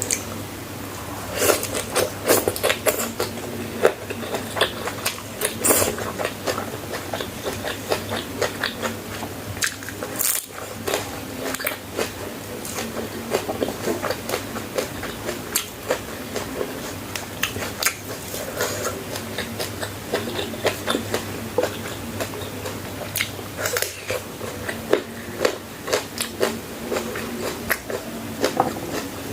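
A person chewing and biting crunchy food, with irregular crisp crunches and mouth sounds throughout, over a steady low hum.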